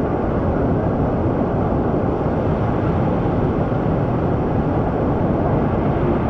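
Steady, loud rush of whitewater from a river rapid.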